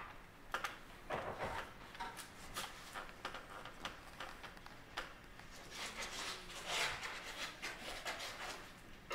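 Gloved hands handling and unpacking an evidence package: rustling with scattered sharp clicks and knocks, the rustling heaviest about six to seven seconds in.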